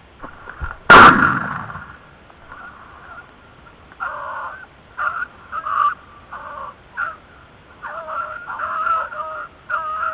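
A single shotgun shot about a second in, the loudest sound, with a short echoing tail. From about four seconds on, beagles bay in short repeated calls while they hunt the rabbit.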